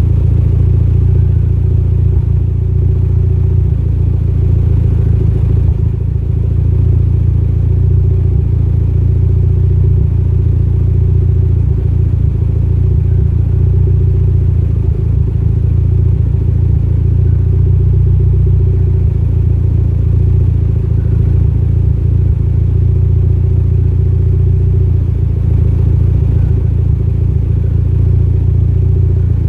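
Mitsubishi Lancer Evolution X's turbocharged 2.0-litre four-cylinder engine idling, with a misfire that the owner puts down to a lean condition at idle.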